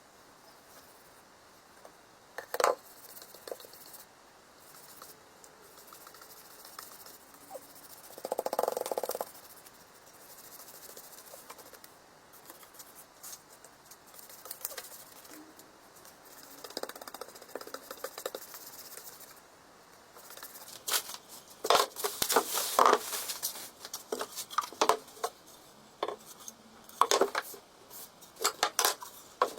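Hand tools working wood: scattered sharp taps and clicks, a short scraping stroke about eight seconds in, and a busy run of clicks and knocks in the last third.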